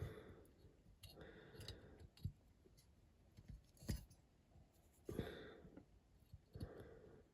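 Faint handling noises of small model parts on a workbench: a few brief rustling scrapes and two sharp light clicks.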